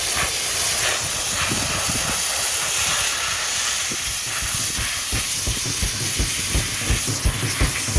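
Sandblaster nozzle blasting abrasive against steel sheet metal, a loud steady hiss, stripping deep-set rust from a car's firewall.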